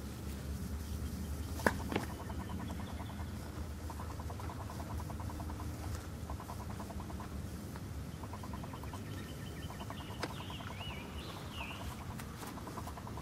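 Outdoor yard ambience: a steady low rumble, with short runs of rapid ticking trills repeating through most of it. A sharp click comes just under two seconds in, and a bird whistles a few wavering notes near the end.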